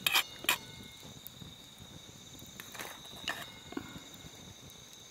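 A few light clinks and knocks as a frying pan is handled on a wire grill over a campfire, against a steady high insect trill.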